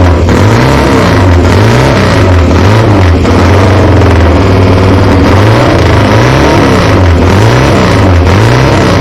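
Matchless G45 500cc parallel-twin racing motorcycle engine running loud, revved up and down again and again.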